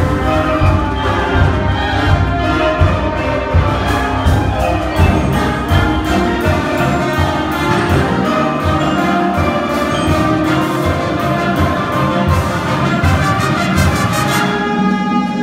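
Marching band playing: brass carrying the music over regular drum hits, with mallet percussion.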